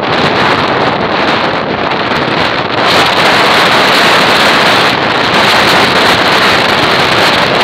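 Strong wind blowing across a handheld microphone: a loud, steady rushing noise that grows stronger about three seconds in.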